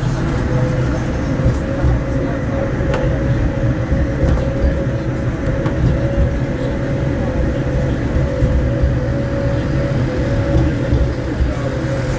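Steady low rumble of a moving vehicle heard from inside it, with a steady mid-pitched whine held through most of it.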